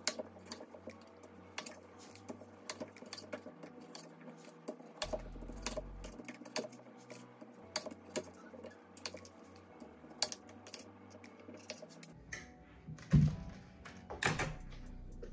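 Kitchen knife cutting red potatoes into quarters on a wooden cutting board: a run of irregular sharp knocks as the blade hits the board, with two louder knocks near the end.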